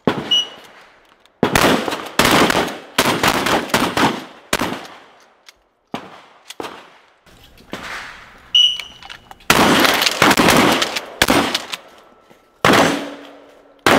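Several 12-gauge pump-action shotguns firing at steel targets, the shots overlapping in quick runs with short gaps between groups. Two of the shots are followed by a brief high ring.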